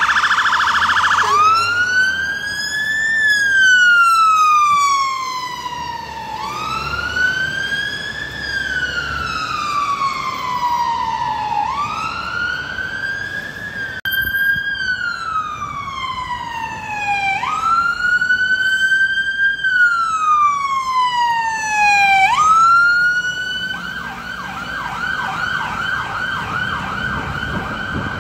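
Fire engine siren on the wail tone, each slow rise and fall lasting about five seconds, switching to a fast yelp about four seconds before the end.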